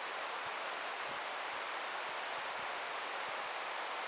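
Steady, even rushing hiss of forest ambience, with no distinct calls or knocks.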